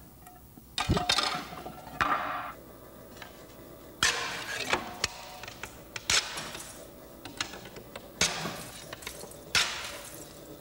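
Slate cracking and snapping as it is split into thin sheets and cut to size on a slate-dressing machine. About seven sharp cracks come one every second or two, each with a short gritty tail.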